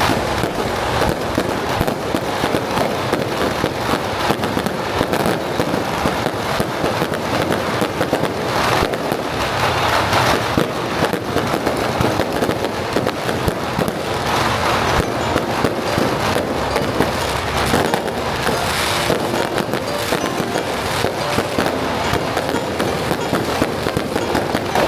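Fireworks and firecrackers going off in a dense, continuous crackle of rapid pops, loud and without a break.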